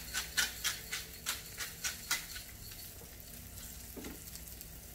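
Pepper shaken over burger patties in short sharp shakes, about three a second, for the first two seconds. Under it the patties sizzle faintly on a Blackstone flat-top griddle. There is a light knock about four seconds in as a bottle is set down.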